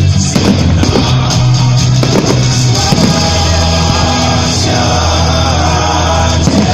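Loud rock-style music with electric guitar and a singing voice.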